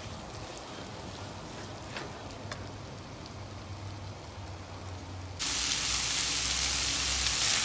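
Chicken pieces frying in peanut oil in a nonstick pan: a steady sizzle with a few light clicks, turning abruptly louder about five seconds in.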